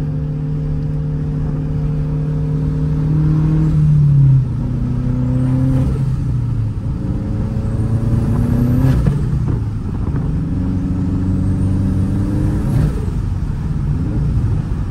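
Tuned sports car engine pulling hard under acceleration. Its note climbs and then drops back with each of about four upshifts, and a faint high whistle rises along with it.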